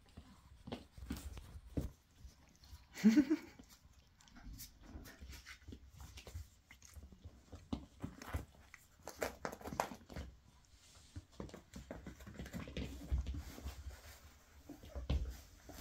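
Adult Griffon Bruxellois and Toy Poodle puppies playing and tumbling on blankets: scuffling and rustling throughout, with one short yelp that rises in pitch about three seconds in.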